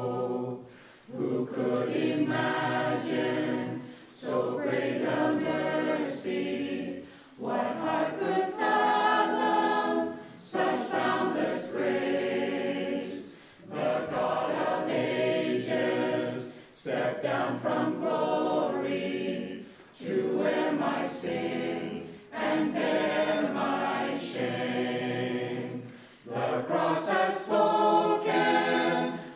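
Mixed church choir of men's and women's voices singing a hymn verse, in phrases a few seconds long with short pauses for breath between them.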